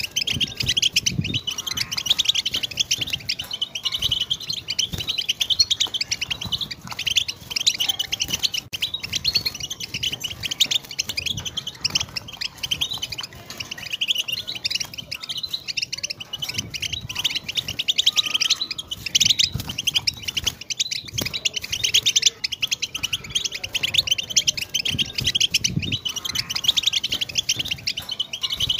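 European goldfinch singing: a continuous, fast, high twittering song of rapid notes that runs on without pause.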